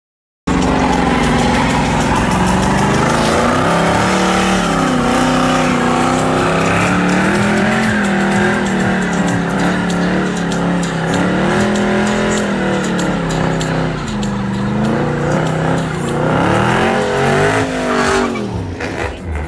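A car engine held at high revs, its pitch rising and falling over and over, while the tires squeal and spin against the pavement during a donut.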